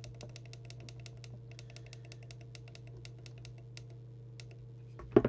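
Rapid runs of small clicks from the Thunderpole T800 CB radio's channel control as it is stepped up from channel 2 towards channel 20, over a steady low hum. A loud thump near the end.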